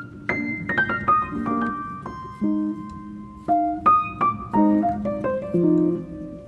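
Background piano music: a slow melody of single struck notes over low chords.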